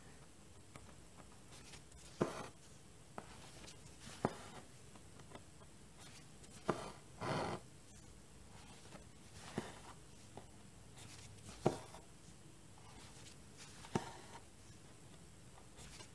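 Cross-stitch needle popping through stiff Aida cloth in an embroidery hoop and floss being drawn through: a soft sharp tick about every two seconds, with a longer scratchy rasp of thread pulled through about seven seconds in.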